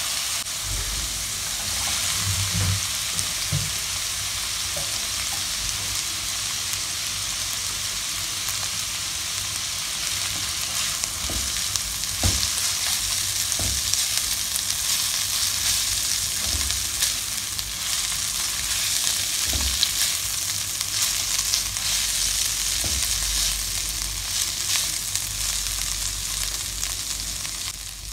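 Minced garlic, then shredded chicken, frying in hot oil in a non-stick wok, giving a steady sizzle. A black slotted spatula stirs the food and now and then knocks and scrapes against the pan.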